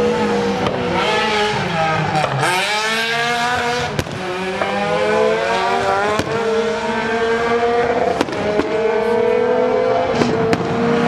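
Renault Clio race car engines slowing for a bend, then revving up through the gears with a rising pitch at each gear. A sharp crack comes at each shift, about every two seconds.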